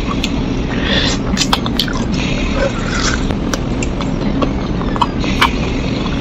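Close-miked eating of spicy chicken feet: wet chewing, lip smacks and sucking, with many small sharp clicks and short hisses, over a steady low rumble.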